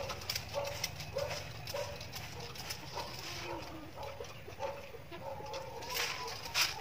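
Handheld pump sprayer misting a liquid fertilizer and hormone solution onto potted cuttings: short hissing spray bursts, the loudest pair near the end. Behind it, a short animal chirp repeats about twice a second.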